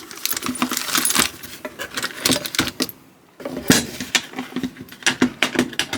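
Small parts from an LG dryer drum roller repair kit clinking and rattling as they are handled, with a brief pause about three seconds in.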